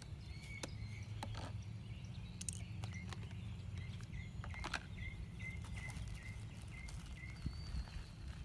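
Plastic packaging being handled and the plastic parts pulled free, giving a few sharp clicks, over a steady low rumble. A short high chirp repeats about three times a second through the middle.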